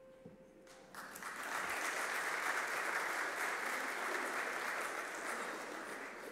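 Congregation applauding, starting about a second in and tapering off near the end. In the first second the last ringing note of a handbell choir dies away.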